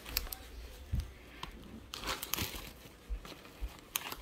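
Plush toy fabric rustling and rubbing close against the microphone as the toys are handled, with scattered clicks and a few soft thumps.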